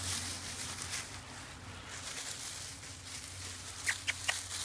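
Dogs' paws rustling and crunching through a thick layer of dry fallen leaves as they walk and sniff. A few short high squeaks come near the end.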